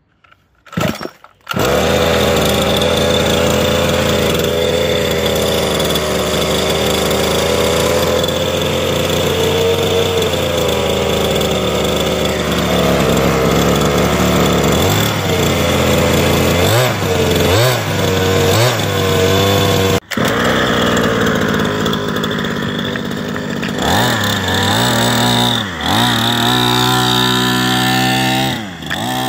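VRX 1/5-scale RC car's two-stroke petrol engine, pull-started on its first start after a long lay-up, catching about a second and a half in and idling steadily. After that it is blipped several times and revved hard as the car drives off, the pitch rising and falling.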